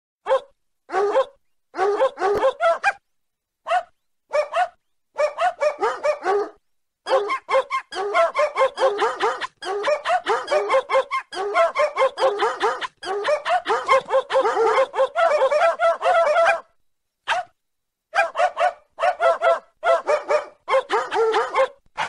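Dog barking ringtone: a recorded dog barking in short, sharp barks. The barks come singly at first, then in a fast, almost unbroken run through the middle, then again after a short pause. Each group cuts off to dead silence, as an edited ringtone loop does.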